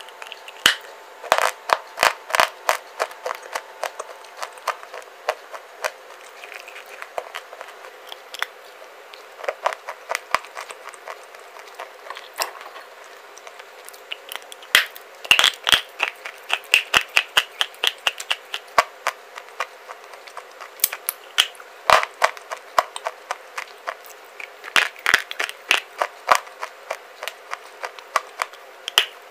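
A person biting and chewing dry clay bars close to the microphone: sharp crunches and snaps come in quick clusters of several a second, with quieter crumbly chewing clicks between.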